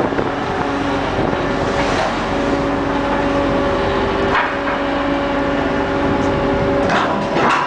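Offshore vessel's heavy-lift crane machinery running steadily as it lifts a suspended load: a loud mechanical drone with several steady humming tones that drop in and out. A few knocks near the end.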